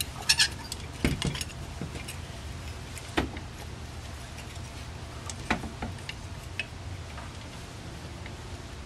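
Scattered metal clicks and knocks from a Rochester Monojet carburetor being handled and turned over by hand during reassembly, its parts and linkage tapping and clinking, over a steady low hum.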